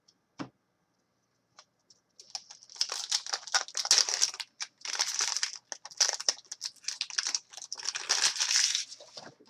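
Foil wrapper of an SPX hockey card pack crinkling loudly as it is opened and crumpled, in four or five bursts over about seven seconds, starting a little after two seconds in.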